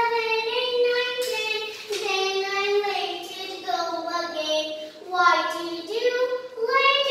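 A young girl singing solo, holding long notes that slide up and down in pitch.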